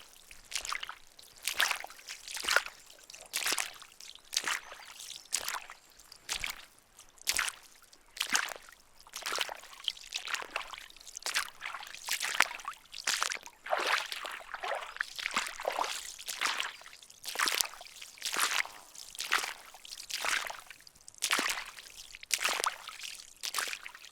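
Footsteps walking through water, each step a splash and slosh, about one step a second.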